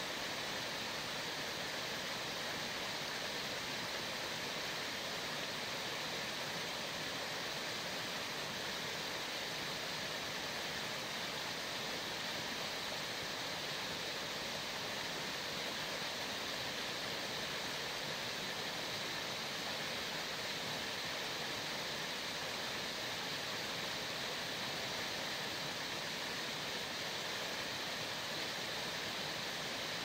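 Running water: a steady, even rush with no separate splashes or drips standing out.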